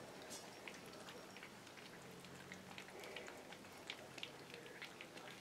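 Cockapoo puppies eating from a metal bowl: faint, irregular wet clicks and smacks of lapping, chewing and licking.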